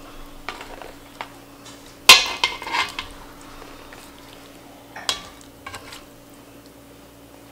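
Stainless metal tongs clinking and scraping against a cast-iron Dutch oven and a plate as braised chicken thighs are lifted out, in a few scattered clinks. The loudest clatter comes about two seconds in and a smaller group about five seconds in.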